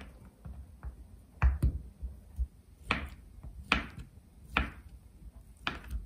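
Kitchen knife dicing a block of Spam, each cut ending in a sharp knock of the blade on a wooden cutting board: a series of separate chops about a second apart.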